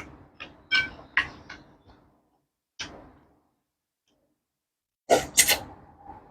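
Close-miked mukbang eating sounds of a person chewing: a run of short, wet mouth clicks and smacks, a pause of about two seconds, then a louder cluster of smacking or slurping sounds near the end.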